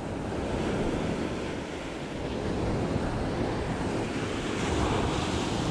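Ocean surf washing up the beach, mixed with wind buffeting the microphone; the wash swells briefly near the end.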